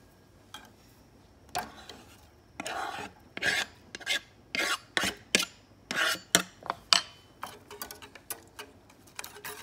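Grated lemon and orange zest being scraped off a cutting board into a saucepan: about a dozen quick, rasping scrapes across the board's surface, then lighter clicks near the end.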